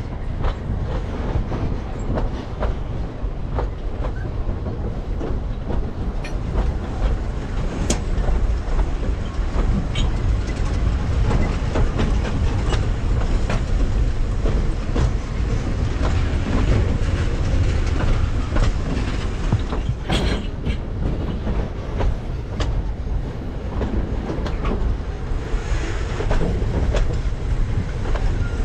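Narrow-gauge steam train's carriages running along the track: a steady rumble with scattered sharp clicks and clacks of the wheels over the rails.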